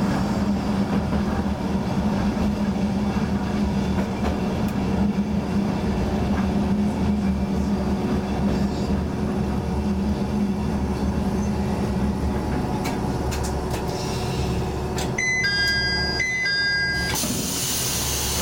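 Diesel railcar idling while standing still, with a steady engine hum. About fifteen seconds in, a short electronic chime of several beeps sounds, followed near the end by a burst of hiss.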